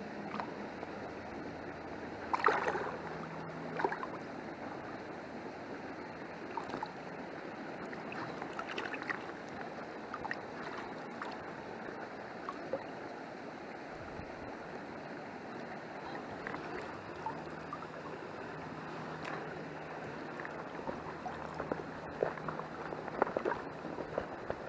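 Steady rush of a small river flowing after heavy rain, its rise settled. Scattered short clicks and knocks sound over it, the strongest about two and a half seconds in and more of them near the end.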